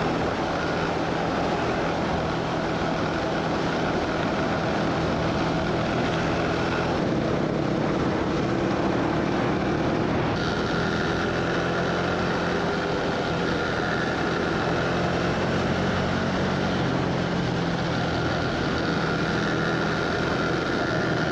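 KTM 390 Adventure's single-cylinder engine running steadily at riding speed on a gravel track, with wind and tyre noise over the bike-mounted microphone. The sound shifts abruptly about seven and ten seconds in.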